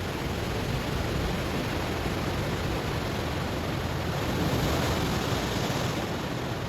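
Ocean waves washing onto stones: a steady rush of surf that builds to a swell about two-thirds of the way through, then eases off.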